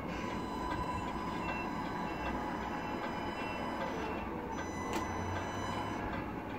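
Tamiya Scania radio-controlled tractor truck driving slowly back and forth: steady mechanical running from its motor and drivetrain, with one sharp click about five seconds in.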